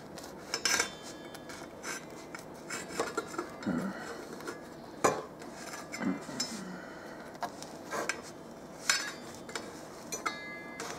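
A metal fork clinking and scraping against a metal pie pan as it cuts through a pie, in sharp clinks spaced irregularly a second or more apart.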